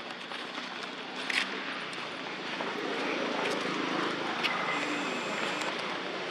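Steady engine noise of a passing motor vehicle, growing louder about two seconds in, with a few short sharp clicks over it.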